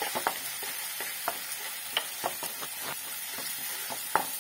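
Onion, tomato and ginger-garlic masala with curry leaves sizzling in sesame oil in a pan, a steady hiss. A spoon stirs it, scraping and tapping on the pan in short clicks scattered throughout.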